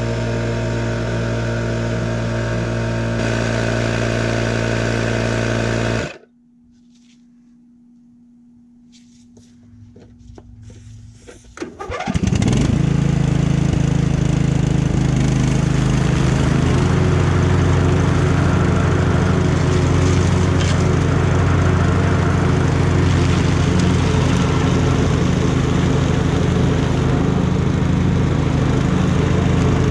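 Portable electric tyre inflator running steadily as it pumps up a lawn tractor tyre, cutting off abruptly about six seconds in. After a quieter stretch, a Sabre GX1438 riding mower's Briggs & Stratton engine comes in with a rising sweep about twelve seconds in and runs loud and steady as the mower drives past.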